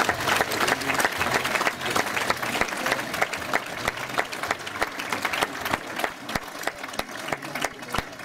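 Audience in a hall applauding, the clapping dense at first and gradually thinning and quieting.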